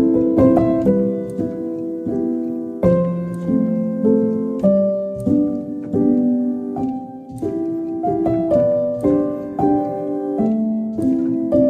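Soft piano music: chords and a gentle melody of held notes changing about every half second.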